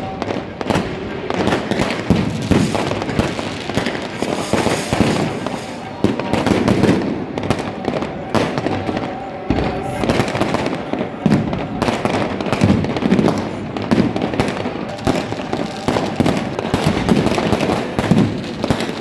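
Fireworks and firecrackers going off without a break, a dense stream of overlapping bangs and crackles.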